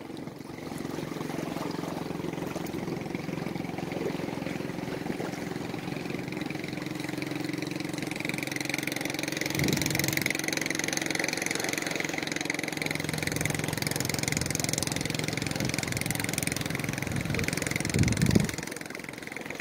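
A small engine running steadily, a low hum with a higher whine joining about eight seconds in; a brief louder sound comes near the end.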